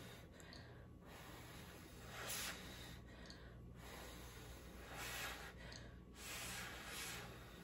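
Short puffs of breath blowing on hot ramen noodles held up on chopsticks to cool them, four times, over a low steady hum.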